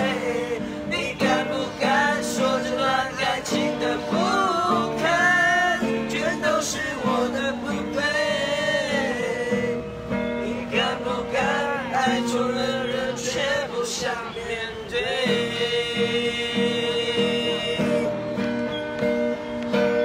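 Acoustic guitar strummed as accompaniment while a man and several teenage boys sing a song together.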